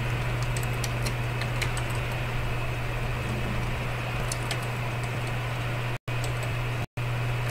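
A steady low electrical hum with scattered light clicks, typical of keys being tapped on a computer keyboard. The sound cuts out completely twice, briefly, near the end.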